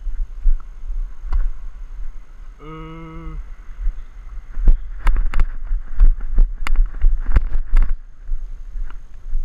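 Footsteps slapping on a hard tennis court: about ten quick, uneven sharp steps in the second half as the camera wearer heads off toward the fence, over a low wind rumble on the body-worn camera's microphone. A short, steady humming tone comes in briefly just before the middle.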